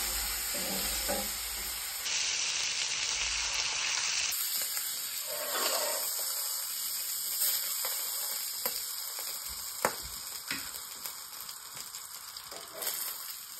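Lamb steak sizzling in hot butter in a spun iron frying pan, with a few sharp clicks of metal utensils against the pan. The sizzle eases off toward the end as the steak is lifted out.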